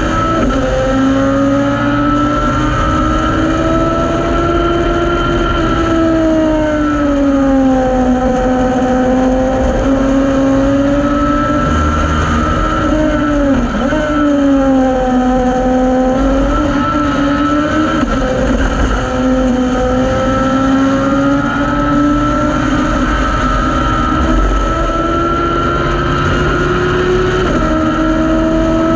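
Thunder Roadster race car's engine heard from the cockpit at speed, running hard with its pitch sagging and rising as the revs change, and a quick dip about halfway through. Wind and road noise run underneath.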